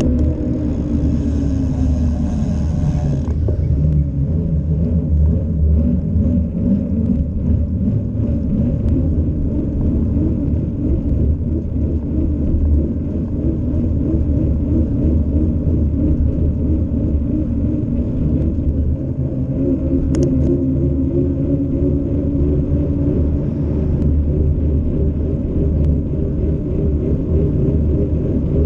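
Wind buffeting and road rumble on a bicycle's handlebar-mounted camera as it rolls along a paved street, with a steady wavering hum over the rumble. A higher hiss and a falling tone fade out about three seconds in.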